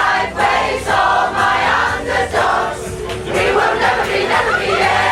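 A choir of many voices singing together.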